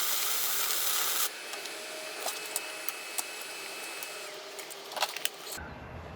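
Wire-feed welder arc firing in a short hissing burst of about a second, then scattered crackles and pops.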